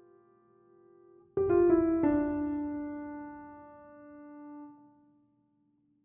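Background piano music: a soft chord struck about a second and a half in, followed by another note, rings out and fades away to silence near the end.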